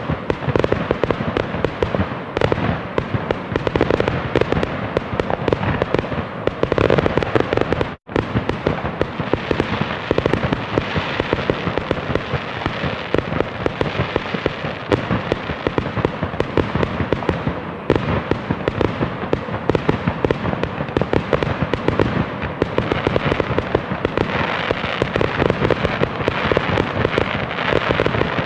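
A fireworks display: a dense, continuous barrage of overlapping bangs and crackles. The sound drops out for a split second about eight seconds in.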